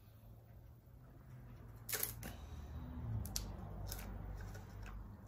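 Light clicks and taps of an intake gasket and its masking tape being shifted by hand against a cylinder head while it is lined up with the port marks, over a low steady hum.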